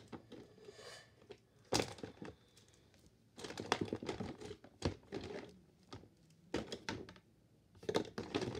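Hands rummaging through a pile of plastic fidget toys, gathering up marble meshes: irregular clacks and knocks with rustling in between.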